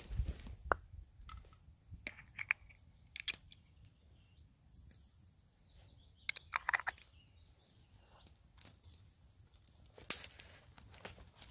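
Short wooden knocks and crunchy rustles of camp gear being handled, in a few clusters. One of them is a carved wooden cup being set down on a sawn log stump. Faint bird chirps can be heard between them.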